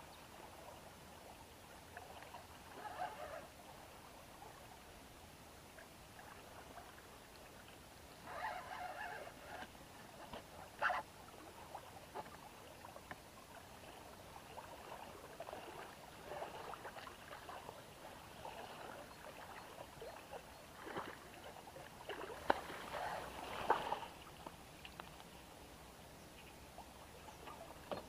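Water splashing and lapping against a small pontoon boat in irregular bursts, with a few sharp knocks.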